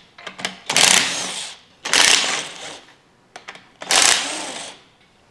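A handheld power tool spins a socket on the engine block's main bearing cap bolts in three short bursts about a second apart, loosening the bolts.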